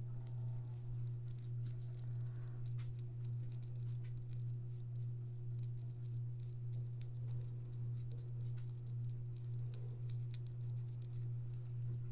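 Soft paintbrush dabbing and scrubbing paint over air-dry clay castings: a continuous run of light, quick ticks and scratches, over a steady low hum.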